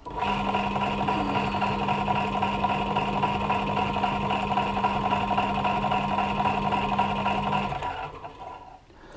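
Drill press motor running at a steady hum, spinning a Solex moped engine's small cylinder-head valve against its seat with lapping paste (valve lapping). The hum cuts off near the end and the sound winds down and dies away.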